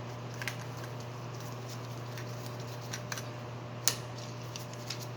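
Scattered light clicks and taps of small metal parts being handled as a Victoria Arduino Mythos One coffee grinder is taken apart for cleaning, with one sharper click about four seconds in, over a steady low hum.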